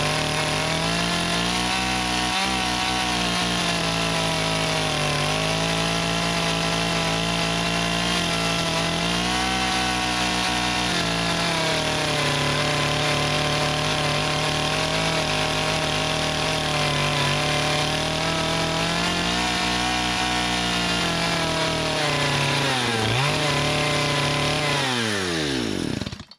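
Two-stroke gas chainsaw running near full throttle as it cuts through the end of a hewn log, its engine note sagging and recovering several times under load. Near the end the throttle is released and the engine winds down quickly.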